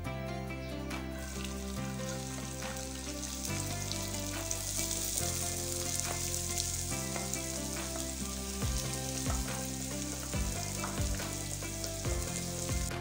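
Hot oil sizzling in a wok as cumin seeds and diced onion and capsicum fry, stirred with a wooden spatula. The sizzle swells about a second in. In the second half, the spatula scrapes and taps against the pan.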